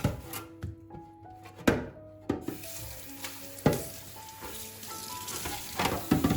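Kitchen cleaning sounds: several sharp knocks of objects being handled and set down, about one every two seconds. From about two and a half seconds in, a steady hiss sets in, over soft background music.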